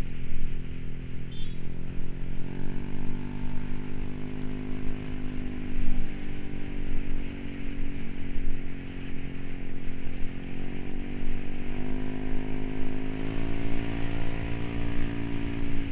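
Yamaha 155 cc single-cylinder scooter engine running while riding, its pitch rising with the throttle a couple of times, over road and wind noise.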